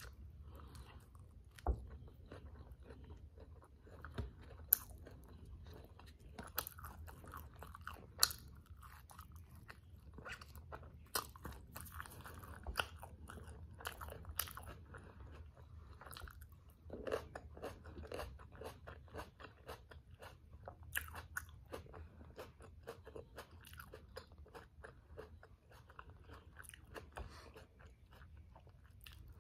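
Close-miked chewing of a black bean and vegetable tortilla wrap with lettuce: wet mouth sounds broken by irregular sharp crunches, a few of them louder than the rest.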